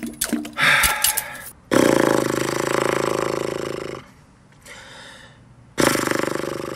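Rubber chicken toy squeezed, letting out two long, raspy squawks: the first about two seconds long, the second shorter near the end.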